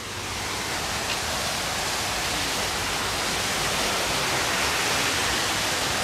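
Waterfall pouring into a lazy river: a steady rush of falling water that grows louder over the first second or so, then holds.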